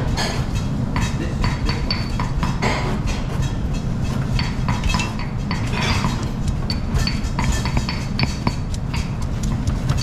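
Pestle pounding chili and coriander root in a mortar for a Thai salad dressing: irregular knocks and clinks, over a steady low kitchen hum.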